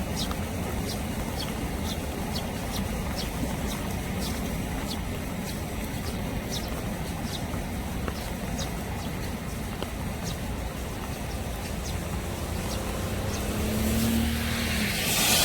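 Steady rush of rain and a flowing stream, with short high chirps repeating two to three times a second. Near the end a passing vehicle swells louder over it.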